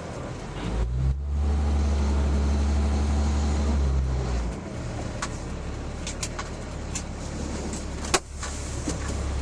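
Fire truck engine running, a strong low drone for a few seconds about a second in, then settling to a lower steady run. A few sharp clicks come in the second half, the loudest near the end.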